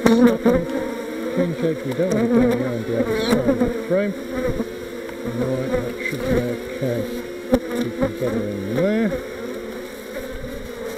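Honeybees buzzing around an open hive close by: a steady hum with individual bees flying past, their pitch sweeping up and down. A few brief sharp clicks are heard among the buzzing.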